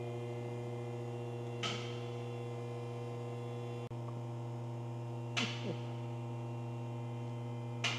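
Steady electrical mains hum. Three brief hissing whooshes fall in pitch, about one and a half, five and a half and eight seconds in.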